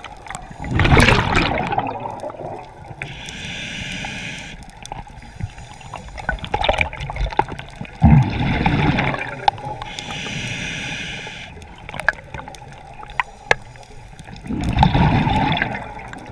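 Scuba regulator breathing underwater: a steady hiss on each inhale and a loud burst of bubbling on each exhale, three exhales and two inhales in turn, about one full breath every six to seven seconds. Scattered small clicks sound between the breaths.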